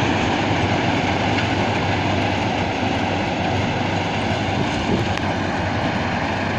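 Rice harvesting machine running steadily: an even, dense mechanical noise with a constant low engine hum.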